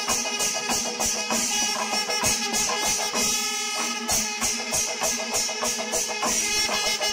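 Kerala panchavadyam temple ensemble playing: a dense, fast stream of hand-beaten drum strokes over the continuous ringing of brass cymbals, with no pause.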